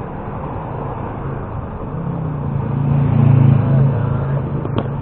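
A motor vehicle's engine grows louder about two seconds in, is loudest around three and a half seconds, then fades, over steady street noise. A few sharp clicks near the end.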